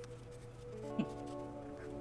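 Soft background music of held, sustained tones. A new chord comes in just under a second in, with a short falling note at about one second.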